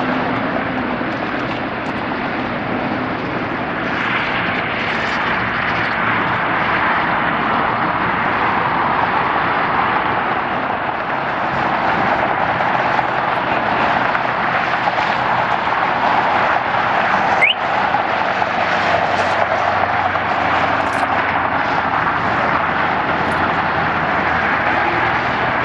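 Boeing 777 jet airliner taxiing, its twin turbofan engines giving a steady rush at low taxi power, with a brief break about two-thirds of the way through.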